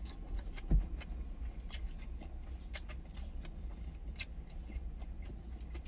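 Chewing, with light clicks of wooden chopsticks against a stainless steel lunch container, over a steady low rumble, and one dull thump about three quarters of a second in.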